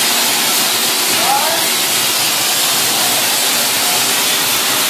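Gantry CNC plasma cutter's torch cutting steel plate: a loud, steady hiss of the plasma arc and its gas jet.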